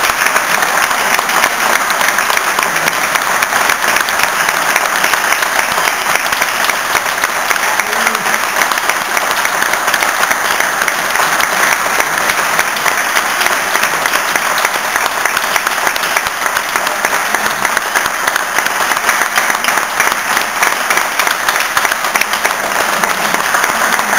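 Audience applauding, many people clapping steadily at the same level throughout.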